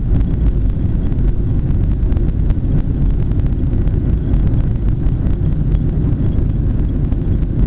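Boeing 737 airliner on takeoff, heard from inside the cabin: a steady, deep rumble of the jet engines and airframe.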